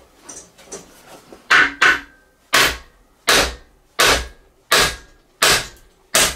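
Hand hammer blows driving at a seized cylinder liner in an AC 2 Litre alloy engine block: about eight hard strikes, a quick pair and then one roughly every 0.7 seconds. The liner is stuck fast and does not shift under the blows.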